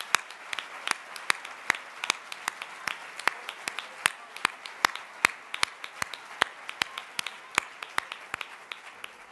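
Audience applauding, with sharp claps in an even beat of about two and a half a second standing out over the general clapping. The applause dies down toward the end.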